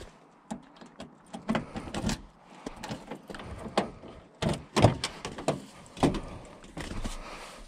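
Irregular knocks and clunks of someone walking up to a vehicle and handling its door, with the loudest thump about five seconds in.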